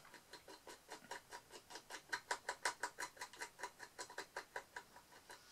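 Wooden stick dabbing and spreading sticky epoxy resin over a small earring base: faint, rapid, regular ticks, about six a second, growing louder about two seconds in.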